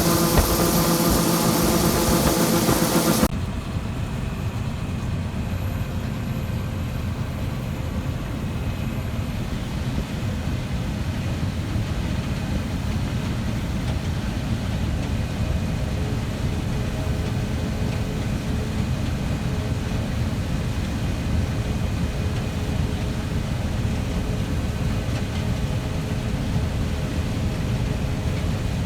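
Heavy farm machinery running steadily. For about the first three seconds it is a loud engine hum with several steady tones and hiss. It then changes abruptly to a lower, steady rumble.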